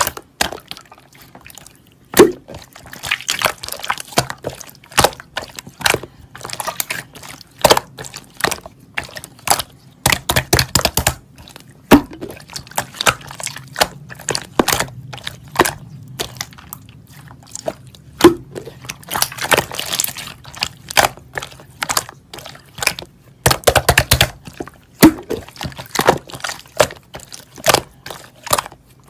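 Foam-bead slime (floam) being squished and worked by hand, with irregular wet pops, clicks and crackles, some of them coming in quick bunches.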